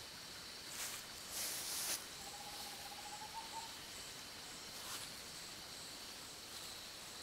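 Crickets chirping steadily in a high-pitched night chorus. A short hiss comes about a second and a half in, and a faint thin tone sounds for about a second and a half around the middle.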